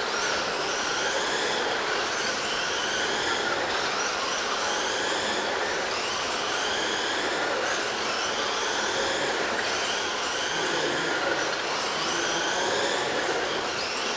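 Several 1/10-scale RC race trucks lapping a dirt oval, their motors whining and rising in pitch again and again, about every couple of seconds, as the trucks accelerate down the straights.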